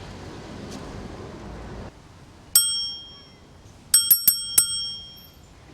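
Small bell rung: one ring about two and a half seconds in, then four quick rings about four seconds in, each with a bright metallic tone dying away. Before the rings, steady city noise that cuts off suddenly.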